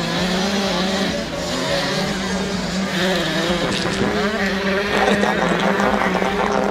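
Two-stroke 85cc motocross bike engine revving up and down as the rider works the throttle on the track, over a steady low hum.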